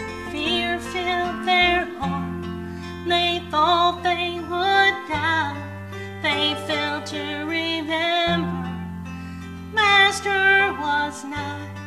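A woman singing a solo melody with vibrato into a microphone over instrumental accompaniment, with long-held bass notes that change every few seconds.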